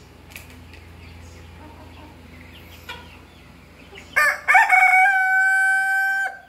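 A rooster crows once, loud, starting about four seconds in. The crow opens with a short rising phrase, then holds one long steady note for nearly two seconds before it cuts off.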